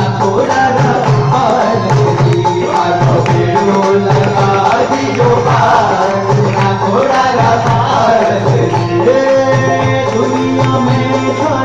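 Jain stavan (devotional hymn) sung live by a man into a microphone, with a steady drum rhythm accompanying the melody.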